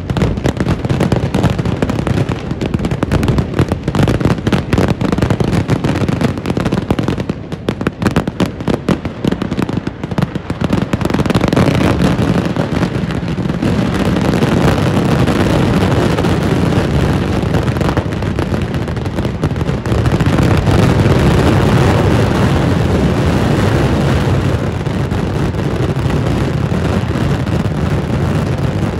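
Massive fireworks barrage (Kerala vedikettu): rapid, overlapping explosions and crackling, which from about eleven seconds in merge into a denser, continuous din of bangs.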